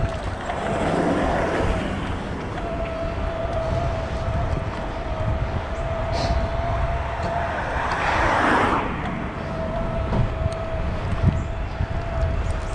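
Riding an eBike: wind rumbling on the handlebar microphone under a steady high whine that drops out twice. Road noise of passing vehicles swells and fades twice, about a second in and again around eight seconds.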